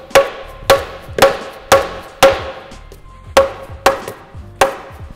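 Rubber mallet striking the oil pan of a Volkswagen 2.0 TSI engine to break its sealant loose: about eight sharp knocks, roughly two a second with a short pause midway, each with a brief ringing note.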